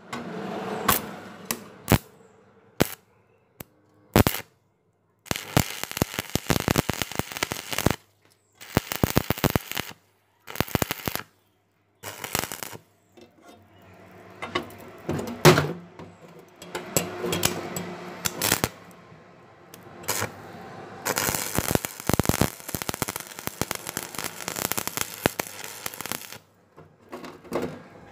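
Stick welding arc on steel angle iron, crackling and sputtering as the electrode burns. It starts and stops several times, with short runs and silent breaks early on giving way to longer unbroken runs in the second half.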